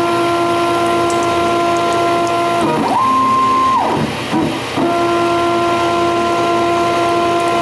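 Stepper motors of a CNC-converted Grizzly G0602 lathe whining through threading passes over the running spindle. A steady tone lasts about three seconds as the carriage feeds along the thread. About three seconds in, a higher whine with quick pitch ramps up and down marks the rapid return move, then the steady feed tone resumes.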